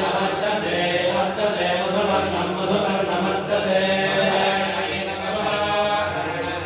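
A group of men and boys chanting Vedic mantras together in unison.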